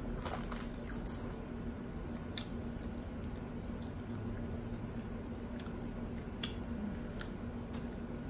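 A person chewing and biting into food, with a few short sharp clicks, over a steady low hum.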